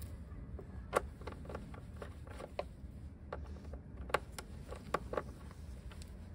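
Scattered small clicks and taps of parts being handled and fitted by hand at a motorcycle's carburetor and air intake, with sharper clicks about a second in and again around four and five seconds in, over a low steady rumble.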